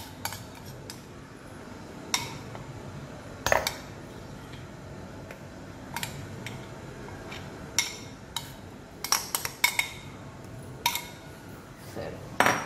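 A metal spoon clinking and scraping against stainless-steel bowls as thick dhokla batter is poured and scraped out. There are a dozen or so separate sharp clinks, with the loudest about three and a half seconds in and another just before the end.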